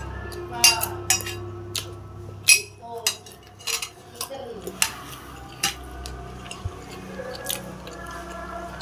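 Spoon and fork clinking and scraping against a plate while eating, with sharp irregular clinks every half second to a second.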